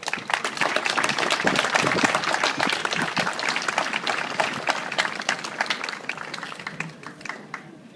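Crowd applauding, the clapping thinning and fading out near the end.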